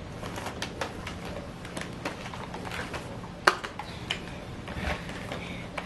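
Mini toy trains clicking and clattering as they are handled and knocked together on a toy track, with one sharper knock about three and a half seconds in.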